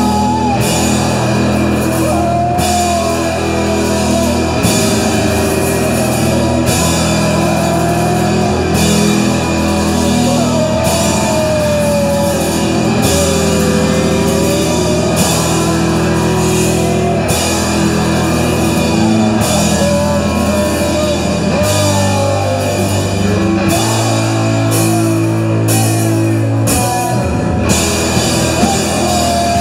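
Live rock band playing loud, noisy post-rock: distorted electric guitar, electric bass and a drum kit, with a wavering melodic line above steady low chords.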